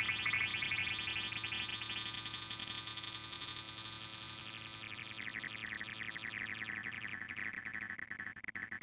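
Cartoon soundtrack run through heavy audio effects: a distorted, synthetic-sounding warble with a fast flutter, slowly growing fainter and breaking up near the end.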